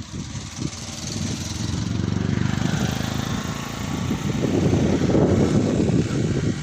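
An engine running, growing louder and rougher around five seconds in.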